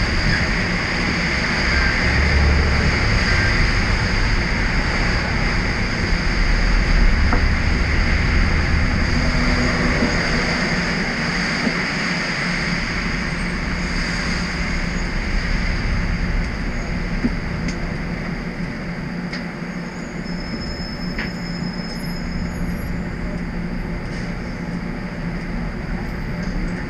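Steady cabin noise inside a Toronto TTC streetcar standing at a stop: a low rumble and hum from the car's equipment, with faint steady high whines, slowly getting quieter.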